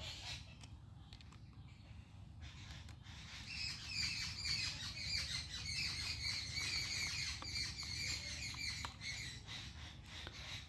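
Birds chirping and chattering continuously, starting about two and a half seconds in, with a few faint clicks of parts being handled.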